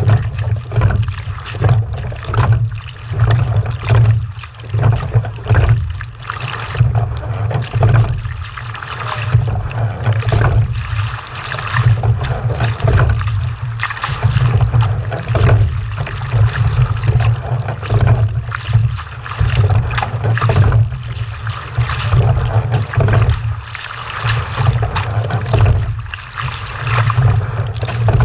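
Water rushing and splashing in uneven swells over a steady low rumble.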